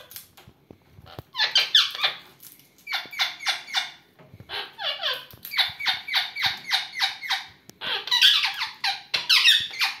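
Indian ringneck parakeet calling in quick, repeated short notes, about five a second, in four runs with brief pauses between them.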